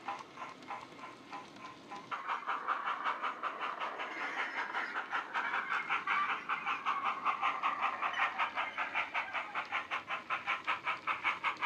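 Model LSWR Adams O2 tank engine's DCC steam sound (a Howes sound file on a LokSound 5 decoder, through a bass-enhanced speaker in the coal bunker) chuffing at a quick, even beat as the loco runs. The chuffs are fainter at first and grow louder about two seconds in.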